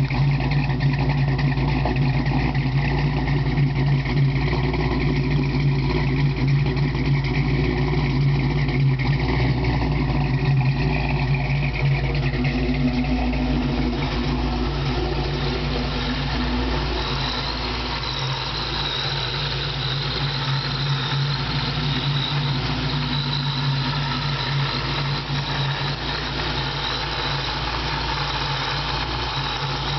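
Supercharged Ford 5.4 L SOHC V8 from an F-150 Lightning, idling steadily. It is heard first from the exhaust tips and later from the open engine bay. A little past halfway, a steady high whine joins the idle.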